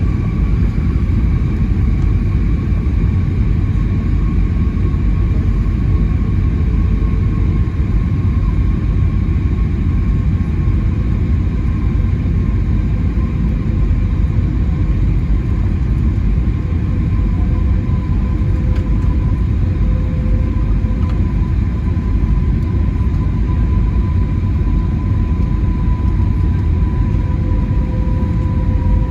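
Cabin noise of an Airbus A320neo in flight: a steady, loud engine and airflow rumble with a faint whine from the engines that slowly drops a little in pitch.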